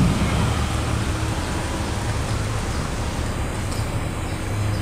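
A small sedan driving slowly across a car park, its engine running low and steady.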